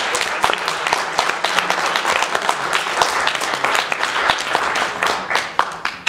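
Audience applauding: dense, continuous clapping that begins to die away near the end.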